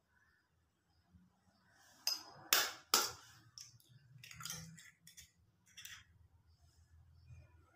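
An egg being cracked with a kitchen knife: three sharp taps on the shell about two to three seconds in, then softer clicks and crackling as the shell is broken open and the egg drops into a small steel bowl.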